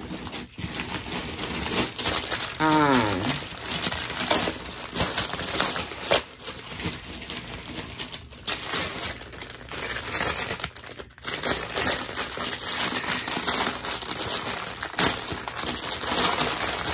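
Paper wrapping crinkling and rustling steadily as it is handled and pulled from a purse box.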